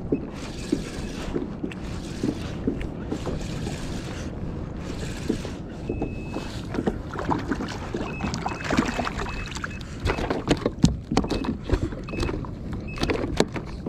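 Wind buffeting the microphone over water washing around a kayak on a choppy sea. In the second half comes a run of sharp clicks and knocks from handling on board.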